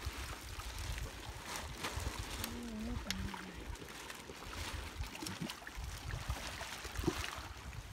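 Seawater lapping and splashing against the side of a fish pen and its net, with small splashes at the surface and an uneven wind rumble on the microphone.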